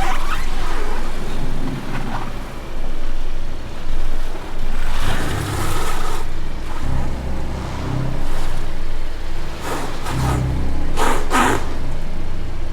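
Car being driven: steady road and tyre rumble with engine hum, and brief hissy swells about five and about eleven seconds in.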